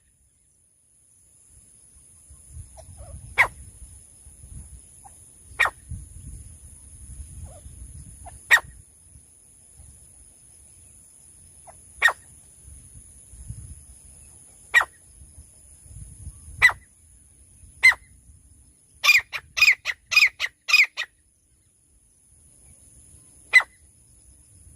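Francolin (teetar) calling: single short, sharp notes every two to three seconds, then a quick run of five notes, and one more note near the end.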